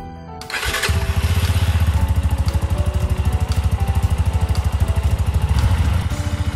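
Yamaha Serow's air-cooled single-cylinder engine running at idle with an even, rapid pulsing beat. It comes in about half a second in and eases off near the end. This is the warm-up idle after an oil change that lets the fresh oil work through the engine.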